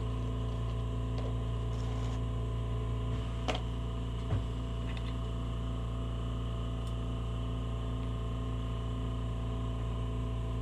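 Steady low hum with two short clicks about three and a half and four seconds in, as metal tongs and a dried cornstarch sample are picked up and handled.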